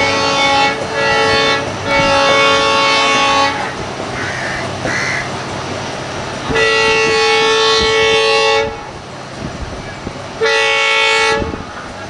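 WDP-4D diesel locomotive's horn sounding five blasts as the train approaches: two short toots, a longer blast, a long blast about six and a half seconds in, and a shorter one near the end. The locomotive's low rumble runs underneath between the blasts.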